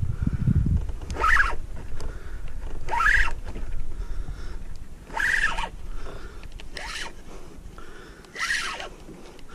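Pedal kayak drive squeaking in a regular rhythm, one short chirping squeak about every two seconds as it is pedalled, with a low rumble in the first second.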